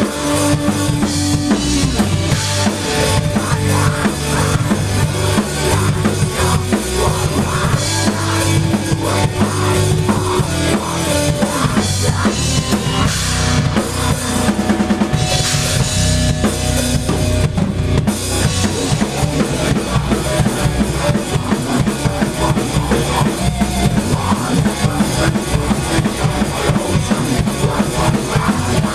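A band playing loudly at rehearsal, the drum kit to the fore with a steady beat of kick drum, snare and cymbals under sustained instrument notes.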